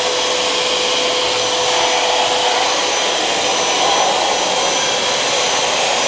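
Miyako 30-litre wet/dry drum vacuum cleaner running steadily with a constant whine over the rush of air, its floor nozzle sucking up soapy water from a tiled floor.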